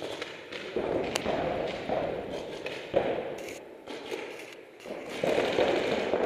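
Rustling and bumping from a paintball player's head-mounted camera as he moves and handles his marker behind inflatable bunkers, with a few sharp cracks, the clearest about a second in and about three seconds in.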